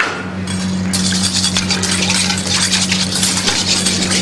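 Sage-infused syrup poured in a thin stream into egg yolks and cream in a stainless steel bowl: a splashing trickle that starts about a second in and runs to near the end, over a steady low hum.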